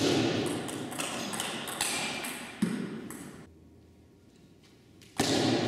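Table tennis rally: the ball clicking off rackets and the table in a quick string of sharp pings, with one louder hit about two and a half seconds in. Play stops about three and a half seconds in, and a new rally of hits starts near the end.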